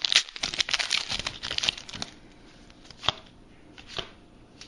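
A trading card pack's wrapper being torn open, crinkling densely for about two seconds, then a few single sharp clicks as the cards are handled.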